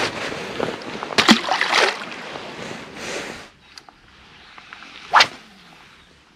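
Water splashing and handling noise for the first few seconds, then one sharp whip-like swish about five seconds in.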